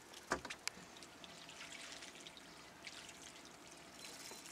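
Faint water trickling and lapping against a small boat's hull, with a couple of light knocks in the first second.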